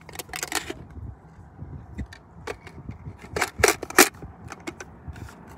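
A 75-round drum magazine being fitted into the magazine well of a Century Arms RAS47 AK-pattern pistol: scattered handling clicks and knocks, with a cluster of louder sharp clicks about three and a half to four seconds in as the drum is seated.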